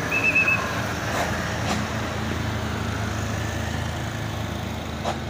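A bus's diesel engine running with a steady low drone on a steep hill road. A brief high chirp sounds right at the start, and there are a few faint clicks.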